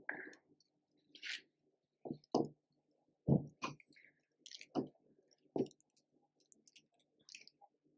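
Soft taps and knocks on an interactive display panel, about six scattered over a few seconds, as slides are switched. There are a few short hisses between them.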